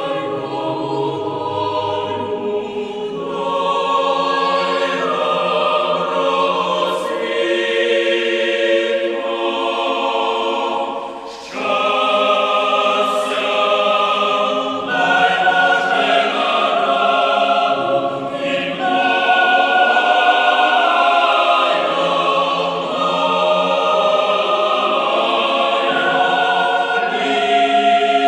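A choir singing a slow piece in long, held chords, with a brief drop in level about eleven seconds in.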